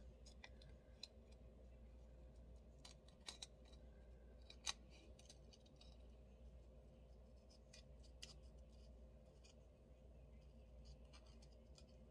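Small scissors snipping paper stickers, a scattered run of faint short snips with one sharper snip near the middle.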